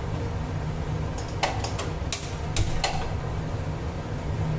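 Handheld gas lighter clicking repeatedly to light a gas stove burner: a quick series of sharp clicks about a second in, lasting under two seconds, until the burner catches. A steady low hum continues underneath.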